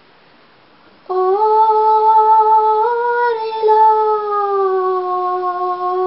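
A woman singing a Limbu hakpare samlo solo, with no accompaniment. After a pause of about a second she holds one long note that steps up a little and then sinks slowly.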